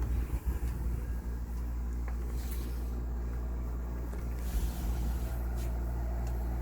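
Tempia window air conditioner running with a steady low mechanical hum. Uneven low rumbles come in during the first second or so and again about four and a half seconds in.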